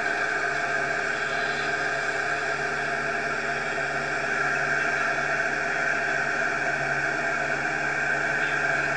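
Siloking self-propelled feed mixer wagon running steadily, heard from inside its cab: a constant drone of engine and machinery while its milling drum works on the silage clamp.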